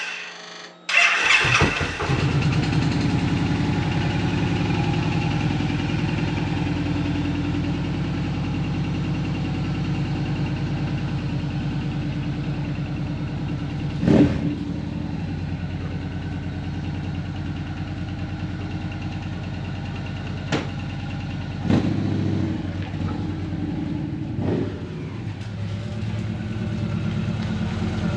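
2014 Victory Cross Country's V-twin engine catching about a second in, then running steadily. A few sharp clicks come along the way.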